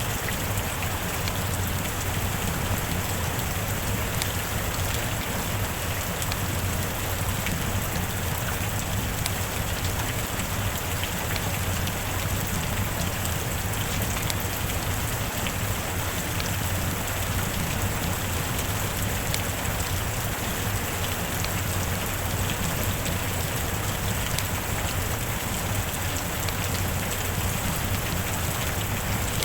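Steady heavy rain: an even, unbroken hiss with scattered faint drop ticks.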